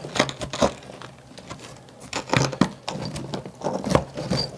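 Hand tool chipping and scraping at wall tile and thinset mortar on a foam shower wall board, in irregular sharp clicks and scrapes, the loudest knocks about two and a half seconds and four seconds in.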